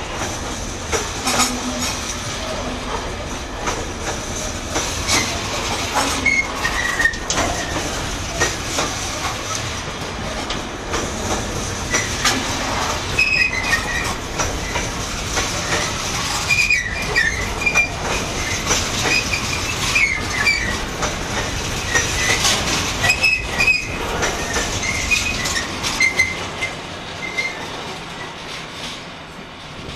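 Freight train of Freightliner bogie hopper wagons rolling past, wheels clattering over rail joints, with short high wheel squeals through the second half. The sound drops away near the end as the last wagon goes by.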